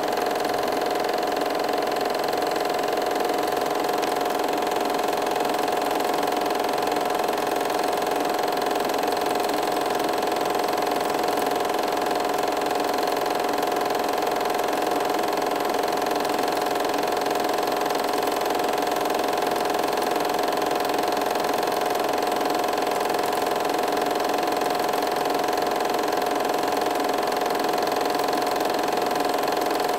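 Steady mechanical whirr of a film projector running, unchanged through the film's scene cuts.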